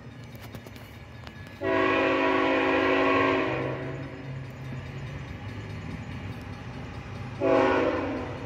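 An approaching diesel locomotive's multi-chime air horn sounds one long blast of about two seconds, then a short blast near the end, over a low steady engine drone.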